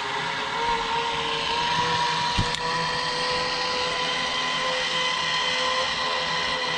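Zipline trolley pulleys running along a steel cable: a steady whine that edges slightly up in pitch as the ride picks up speed. A single knock comes about two and a half seconds in.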